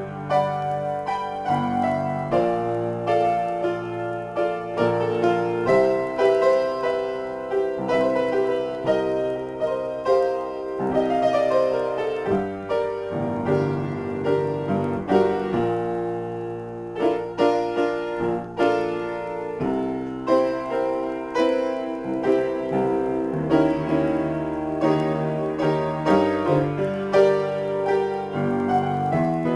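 Upright piano played solo in a free improvisation: a continuous flow of notes and chords.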